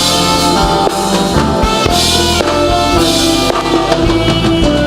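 Live church band playing a slow worship groove: drum kit, bass and guitar with sustained keyboard chords.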